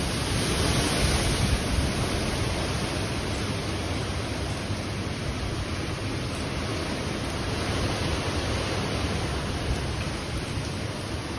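Hurricane wind and rain, a steady rushing noise with wind buffeting the microphone. It swells a little about a second in and again around eight seconds.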